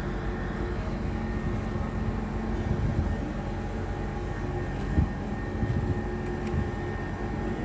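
Heavy construction machinery running steadily with a low engine drone, with a single dull knock about five seconds in.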